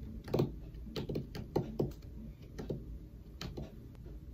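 Typing on a 13-inch MacBook Pro's built-in keyboard: a run of short, irregular key clicks, several close together about a second in and a couple more near the end.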